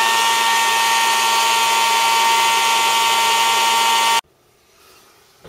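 Handheld hot-air blower running steadily at its higher speed, a motor whine over the rush of air, then switched off about four seconds in, cutting out suddenly.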